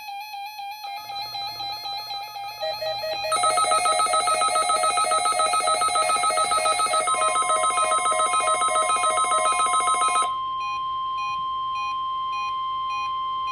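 Electronic alarm beeps and warbling tones from weather-alert receivers sounding together for a NOAA Weather Radio weekly test. About halfway a steady 1050 Hz weather radio warning tone joins and holds, and about three quarters through the fast pulsing gives way to slower, evenly spaced single beeps.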